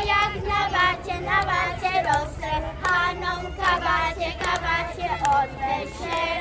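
Children singing a song together, young voices holding and moving between sung notes.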